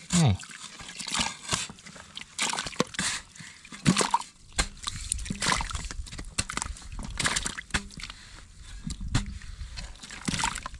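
Muddy water sloshing and splashing in a small dug pit as a hand stirs it, then wet mud scraped and pushed into the water with a digging blade, in irregular separate strokes.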